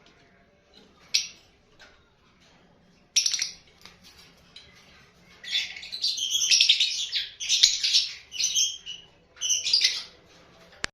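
Lovebirds calling in high, shrill chirps: a few single calls, then a dense stretch of overlapping chattering from about five to nine seconds in, and one more burst near the end.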